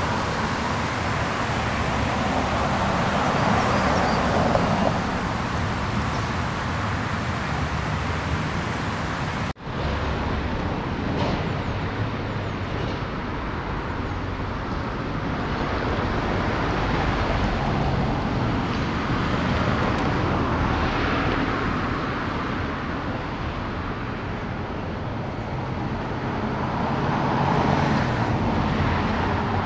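Road traffic: cars passing along a street, the noise swelling and fading as each goes by. About ten seconds in there is an abrupt cut, after which the same traffic sound is duller.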